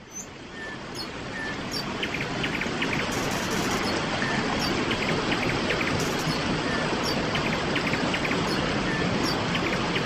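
Steady rush of a waterfall and water pouring over rocks, fading in over the first second or two. Birds chirp briefly now and then above it.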